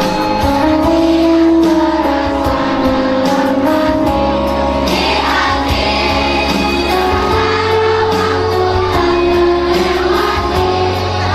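Primary school children's choir singing together, holding sustained notes over an instrumental accompaniment with a steady beat and bass.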